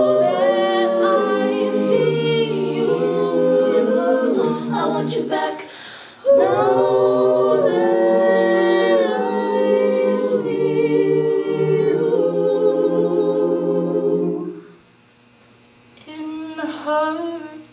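Mixed a cappella group of male and female voices singing in close harmony with no instruments. Held chords break off about six seconds in, then a long loud chord runs until it cuts off about fifteen seconds in. A short, softer sung phrase follows near the end.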